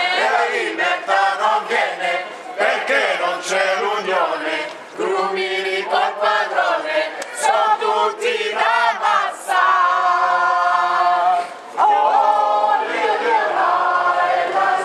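Crowd of demonstrators chanting and singing together in unison, the phrases breaking off briefly a few times, with one long held note about ten seconds in.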